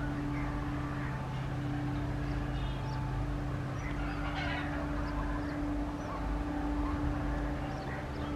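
A steady, low engine drone holding one tone, with birds chirping over it.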